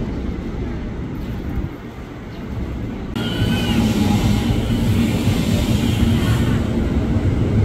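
JR 205-series electric commuter train (KRL) coming into the platform: a low rumble, then about three seconds in a short brake squeal and a steady, louder low hum from the train standing at the platform.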